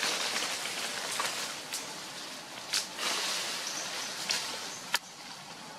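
Dry leaf litter rustling and crackling as macaques move across the forest floor, with several sharp snaps of twigs or leaves. The loudest snap comes about five seconds in, after which the rustling dies down.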